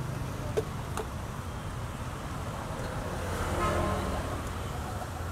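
Steady low rumble of road traffic, with two light clicks about half a second and a second in. The traffic swells briefly a little past halfway, with a faint pitched note in it.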